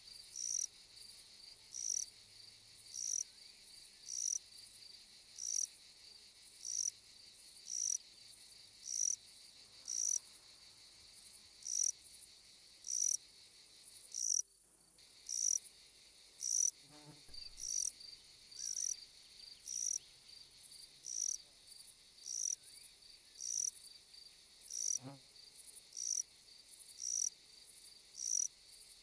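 An insect chirping, short high-pitched chirps repeating evenly about once a second.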